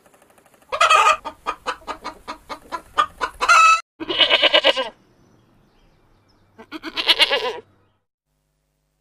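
Chicken clucking in a quick run of about five clucks a second, followed by two longer, drawn-out calls a couple of seconds apart.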